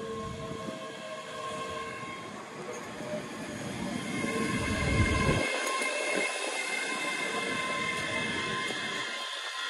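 ScotRail Class 385 electric multiple unit pulling into the platform and slowing for its stop, loudest about five seconds in as the front passes close by. Steady whining tones sit over the wheel and rail noise.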